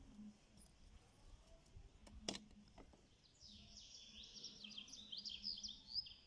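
A single sharp plastic click about two seconds in as the air flow meter is unclipped and pulled from the intake pipe, then a small bird chirping in a quick run of high notes over the last few seconds.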